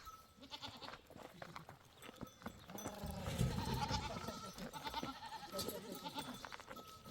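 Goats bleating, with wavering calls about three seconds in that last for a few seconds, over scattered light clicks and knocks.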